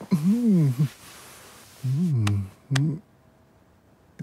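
Cartoon cat's meows, voiced by a person imitating a cat. There are three calls: one that rises and falls, a longer one that falls, and a short one near the end.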